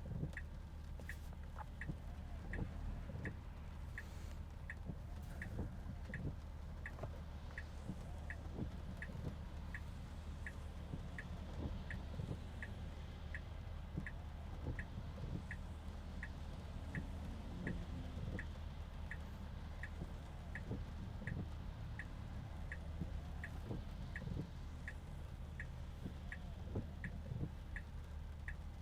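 Tesla Model 3 turn-signal indicator clicking steadily and continuously, about three clicks every two seconds, over the low rumble of the car's cabin and road noise.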